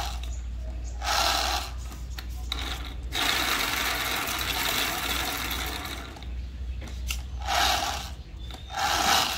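Scraping or rubbing strokes of uneven length, several short ones and one lasting about three seconds in the middle, over a steady low hum.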